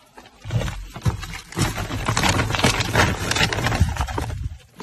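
Rustling of a woven plastic sack and ginger rhizomes knocking together as a hand rummages among them, a dense run of crackles and knocks over a low rumble.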